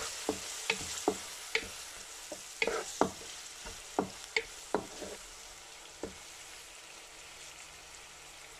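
Chopped onion and cumin seeds frying in oil in a karahi with a steady sizzle, while a wooden spatula scrapes and knocks against the pan as they are stirred. The stirring stops about six seconds in, leaving only the sizzle.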